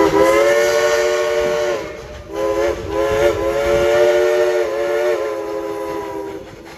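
Steam whistle of former White Pass and Yukon 192, a narrow-gauge steam locomotive, blowing two blasts: a shorter one, then a longer one of about four seconds. The whistle sounds several tones at once as a chord.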